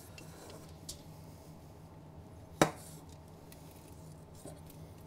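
Chef's knife slicing hard fat off a raw brisket on aluminium foil, quiet cutting over a low steady hum, with one sharp tap about two and a half seconds in.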